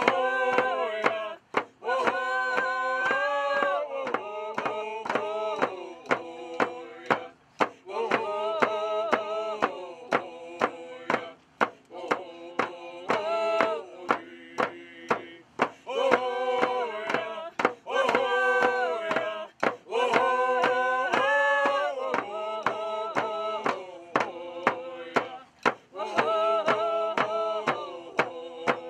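A group of Native American singers, men and women, chanting a song in unison over a steady beat on hand-held frame drums, about two strikes a second. The song comes in phrases with short breaks between them while the drumming keeps going.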